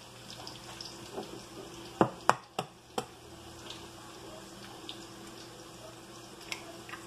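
An egg rapped four times in quick succession against the rim of a ceramic bowl to crack it open, over the steady low sizzle of sliced peppers frying in a pan.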